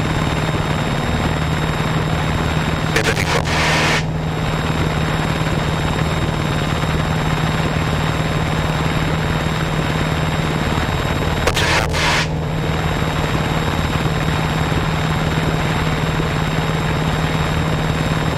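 Piper PA-28's piston engine and propeller droning steadily at takeoff power, heard inside the cockpit through the takeoff roll, liftoff and initial climb. Two brief hissing bursts stand out over the drone, about three seconds in and again about twelve seconds in.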